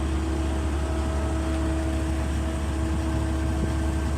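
Cable car ferry's engine running steadily as the ferry moves along its cables: a constant low rumble with a steady hum on top.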